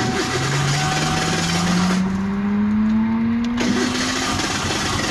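Pickup truck engine starting up and running after being cranked, heard from inside the cab, its tone rising steadily over about four seconds. It restarts because its heat-soaked fuel pressure regulator, which had been sending fuel back to the tank, has been cooled with liquid nitrogen.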